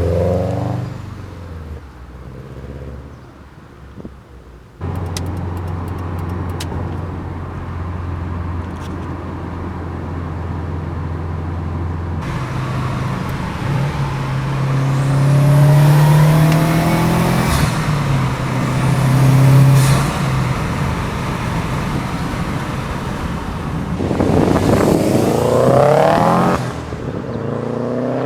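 Exhaust note of a 2013 Subaru WRX's turbocharged flat-four through an Invidia Q300 catted turboback exhaust, heard in several cut-together clips. The revs fall away at the start, then there is a steady low drone, then the engine note rises again and again under acceleration, and the revs climb once more near the end.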